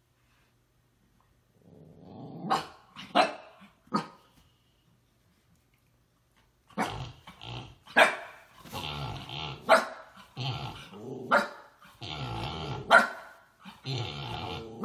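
Dog growling and barking. About two seconds in, a short growl with three sharp barks, then a pause of a couple of seconds, then a long run of growling broken by loud barks about every second and a half.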